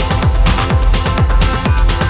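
Electronic trance music: a steady four-on-the-floor kick drum, about two beats a second, under sustained synth chords.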